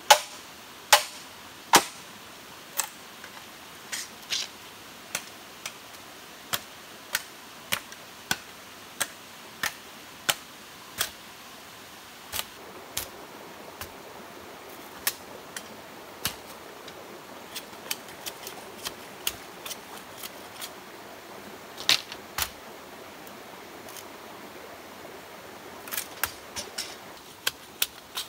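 Machete chopping into bamboo: sharp knocks at a steady pace, roughly one or two a second, loudest at first and softer later, with a quick flurry of strokes near the end.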